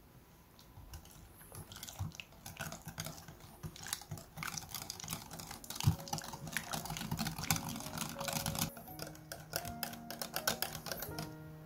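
Wire balloon whisk beating cream and cream cheese in a glass bowl: fast, irregular clicking and ticking of the wires against the bowl with wet mixing sounds. It starts about a second in, is densest through the middle, and thins out near the end as soft music comes in.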